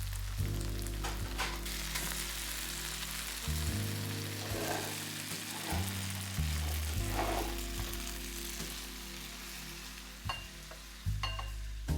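Food sizzling and frying in hot olive oil in a pan, with a few sharp clicks of a utensil against the pan as it is stirred.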